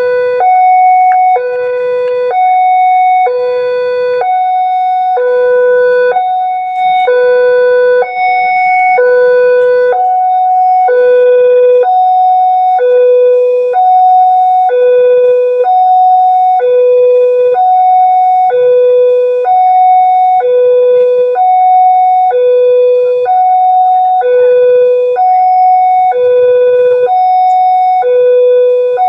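Railway level-crossing warning siren sounding a loud two-tone electronic alarm, alternating steadily between a low and a higher tone, each held for about a second. It is the signal that a train is approaching and the crossing barriers are closing.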